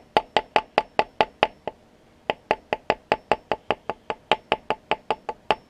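The wooden end of a handle knocking rapidly on a steel mill toe clamp held in a Kurt milling vise, about five sharp, briefly ringing knocks a second, tapping the part down to seat it. A short pause comes about a third of the way in, then the knocking resumes.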